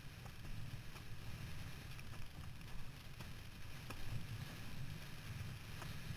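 Windsurfing board sailing over chop: a steady low rumble of wind buffeting the rig-mounted camera's microphone, with water rushing past the board and a few faint ticks of spray or chop striking.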